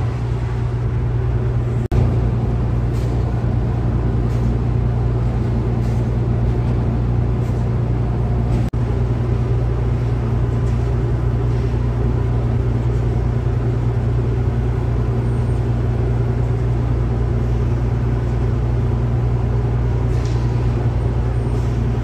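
Ship machinery running with a steady low drone that does not change, with a few faint knocks now and then.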